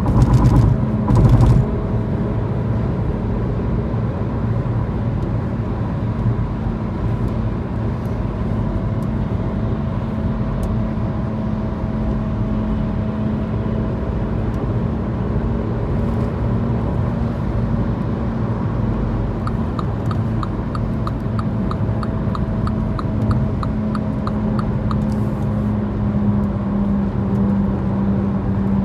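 Mini F56 with a steady, recurring hum over a low running rumble, a noise of unknown cause that the owner is asking about. About twenty seconds in, a fast regular ticking, about three ticks a second, runs for some five seconds.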